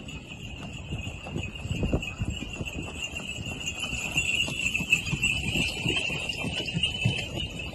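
Horse hooves clip-clopping on paving, probably from a horse-drawn carriage, as irregular knocks under a steady high-pitched buzz that swells toward the middle.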